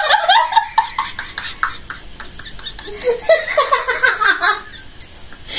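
People laughing: quick breathy bursts over the first couple of seconds, then a laughing voice about three seconds in.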